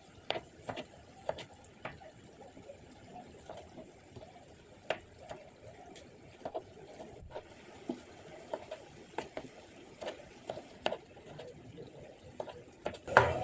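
Knife cutting tomatoes on a chopping board: a string of short, irregular knocks of the blade against the board.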